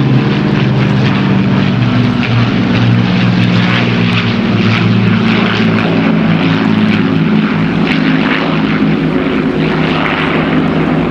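Battle of Britain Memorial Flight formation of an Avro Lancaster, a Douglas Dakota and two single-engine fighters flying past, their many piston engines and propellers droning together loudly and steadily, with a rough, beating edge from the engines running slightly out of step.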